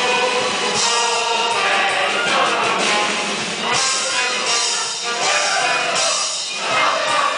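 Music with several voices singing together over instruments.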